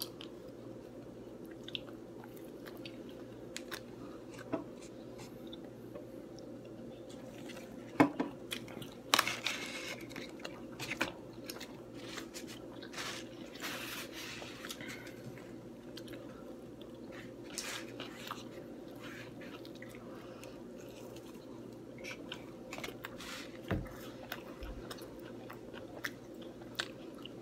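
Close-up mouth sounds of people biting and chewing pizza, with scattered crisp crunches and wet smacks that come thickest from about a third of the way in to the middle. A steady low hum runs underneath.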